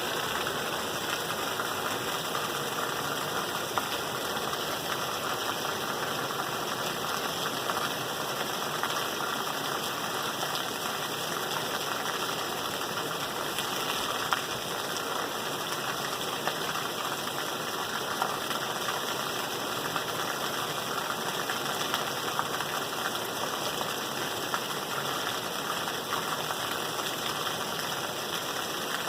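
Steady rain falling, a dense even patter of drops with a few louder single drops here and there.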